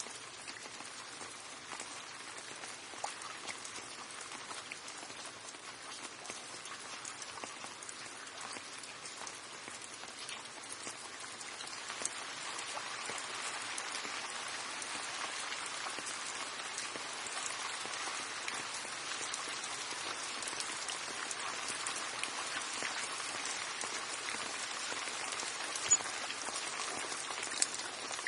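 Steady rain falling, growing heavier about twelve seconds in, with a few sharper drop hits near the end.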